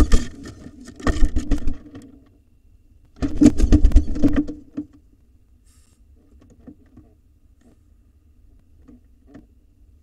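Scratching, scuffling and knocking of birds moving against a wooden nest box. It comes in bursts, loudest about three to five seconds in, then fades to a faint steady hum with a few small taps.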